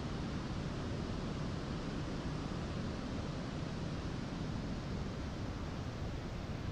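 Single-engine piston airplane's engine and propeller running on the ground, heard as a steady, even rush of noise that is strongest in the low range.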